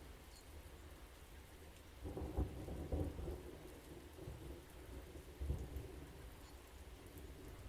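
Steady rain with thunder rumbling, swelling louder about two seconds in and again around five and a half seconds.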